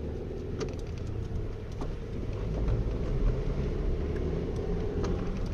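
Car accelerating on asphalt, heard from inside the cabin: engine and the steady low drone of Rosava studded winter tyres, with a few light ticks. The owner finds this tyre hum on asphalt unusually loud.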